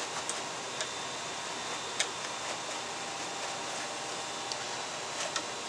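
Tanned coyote hide being drawn back and forth over a blade-edged breaking stake to soften it: a few short ticks and scrapes over a steady hiss.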